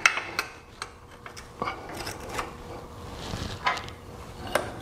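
Irregular light metal clicks and taps of skid plate mounting brackets and bolts being handled and fitted under a motorcycle engine.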